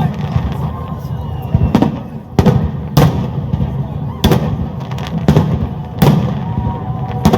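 Fireworks display: about eight sharp bangs of bursting shells, roughly one a second, over a continuous low rumble of further explosions.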